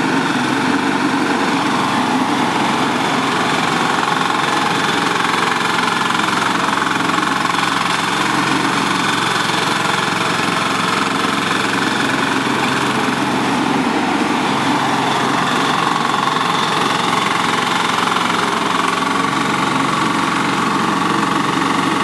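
The 13 hp diesel engine of a mini crawler air-blast sprayer running steadily as the machine drives on its tracks.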